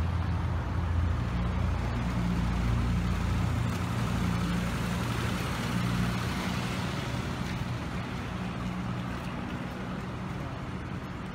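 Street traffic: a steady low engine rumble with road noise, slowly getting quieter toward the end.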